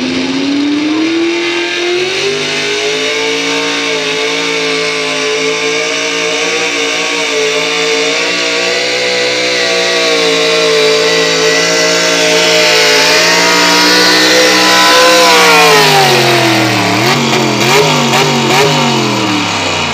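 Pickup truck engine pulling a weight sled under full load. The revs climb over the first couple of seconds and then hold high and steady through the pull. About three-quarters of the way through the revs drop off, and a few quick throttle blips follow.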